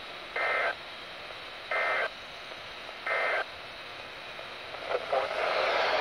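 Three short, identical electronic beeps about 1.4 seconds apart, each holding two steady tones, over a steady radio hiss. They are followed about five seconds in by a longer, louder burst of hissing noise.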